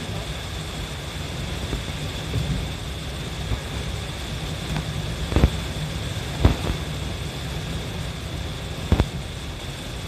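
Car cabin on a wet expressway in heavy rain: a steady low rumble of road and engine with a hiss of rain and tyre spray. Three sharp knocks break through, about halfway, a second later and near the end.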